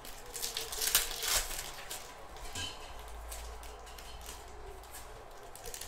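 Plastic-wrapped trading card packs crinkling and rustling as they are handled and sorted, with the loudest crackles about a second in.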